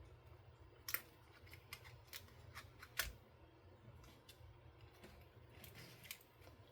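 Faint handling noises of papercraft work: scattered light clicks and taps, two sharper clicks about a second and three seconds in, over a low steady hum.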